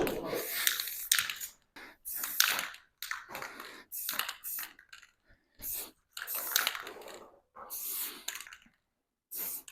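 Irregular rustling and small clattering noises, short bursts coming every half second or so with brief quiet gaps between them.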